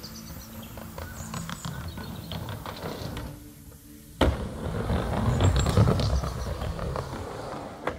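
Skateboard rolling on a megaramp: a sharp clack about four seconds in, then a louder rolling rumble for about three seconds.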